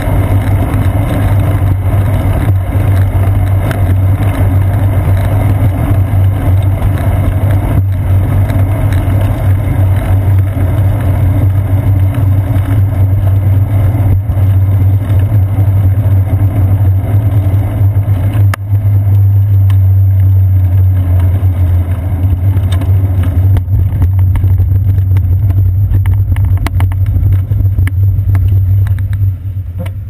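Steady low wind and road rumble picked up by a seat-post-mounted GoPro Hero 2 on a moving bicycle. It eases near the end, with scattered clicks.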